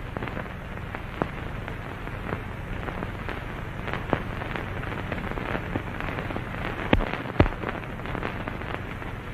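Crackle and hiss of a worn 1940s optical film soundtrack over a steady low hum, with scattered clicks and two sharp pops about half a second apart some seven seconds in.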